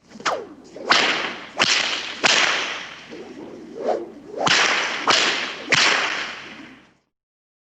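Seven sharp, whip-like cracks, each trailing off in a fading swish. The first comes with a falling swish, three more follow at even spacing, and after a short pause there are three more.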